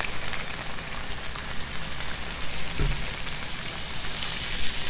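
Pork slices and vegetables sizzling on a hot electric griddle plate, a steady crackling frying sound, with one soft bump about three seconds in.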